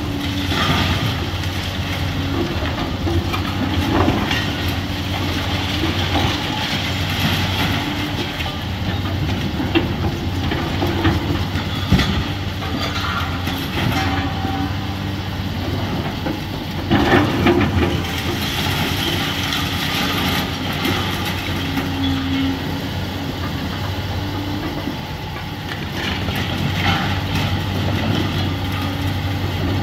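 Komatsu hydraulic excavator's diesel engine running steadily as it tears into a brick and concrete building, with rubble crashing and clattering down throughout. Several louder crashes stand out, the biggest a burst about seventeen seconds in.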